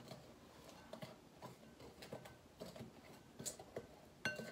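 A spoon stirring a dry powder mix in a glass mixing bowl: faint, scattered scrapes and ticks, with a short ringing clink near the end as the spoon strikes the glass.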